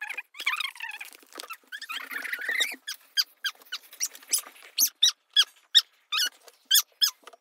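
Children's high-pitched voice squeals: a quick run of short squeaks with a longer warbling squeal about two seconds in.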